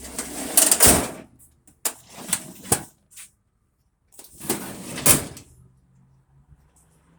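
Storage drawers sliding open and shut with parts clattering inside: two long bouts of rattling, the first right at the start and the second about four seconds in, with a few sharp knocks between.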